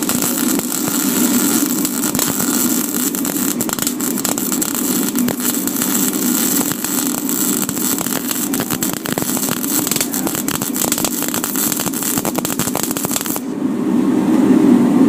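Miller MIG welder arc crackling steadily with spatter. It cuts off abruptly about 13 seconds in, leaving a steady low hum.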